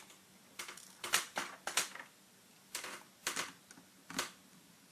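Sharp small clicks and taps, about a dozen in irregular clusters and stopping about four seconds in, from a mini screwdriver working the screws out of a netbook's plastic screen bezel.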